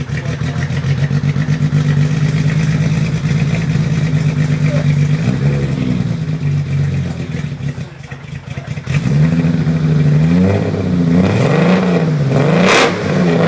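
1989 BMW 325i's M20B25 2.5-litre straight-six heard at the tailpipe of a 2.5-inch catless straight-through exhaust with two aftermarket Z06 mufflers. It runs steadily, drops back briefly, then is revved in several quick blips in the last few seconds, the pitch rising and falling, with a couple of sharp noisy bursts near the end.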